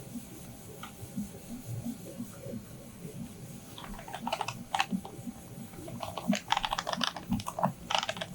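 DTF hot-melt powder being poured into the powder shaker's hopper box: dry, gritty rattling in irregular bursts starting about four seconds in.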